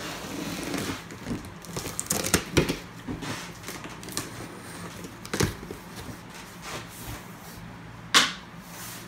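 Cardboard box being opened by hand: fingers picking and scratching at the top edge and the flaps scraping and rustling as they are pulled open, in irregular scrapes and clicks. The loudest is one sharp scrape about eight seconds in, as the top flaps come free.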